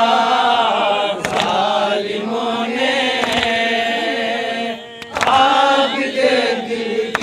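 Men's voices chanting a noha, the Urdu Shia mourning lament, in long held melodic lines, with a brief break just before five seconds in. Sharp slaps come about every two seconds.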